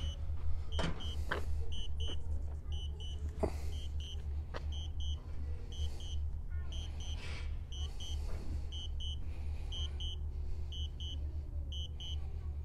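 Repeating pairs of short, high electronic beeps from the DJI Spark's remote controls, a warning alarm sounding because the drone has lost its signal, over a steady low rumble.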